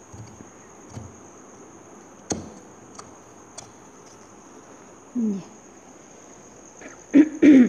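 Large fabric shears cutting stone-studded embroidered fabric, with a few sharp snips about two to three and a half seconds in, over a steady high-pitched whine. A short falling squeak comes about five seconds in, and two brief, loud voice-like sounds come near the end.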